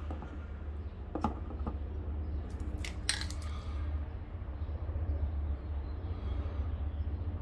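Plastic Dip aerosol can handled with a few light clinks, then giving a short spray hiss about three seconds in, over a steady low hum.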